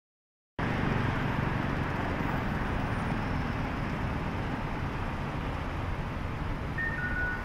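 Busy city street at a road intersection: steady traffic noise from passing cars. It starts about half a second in, after silence, and a short two-note electronic beep, high then lower, sounds near the end.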